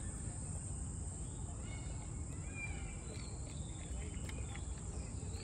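Outdoor ambience: a steady high-pitched insect drone over a low rumble of background noise, with a few faint bird chirps around the middle.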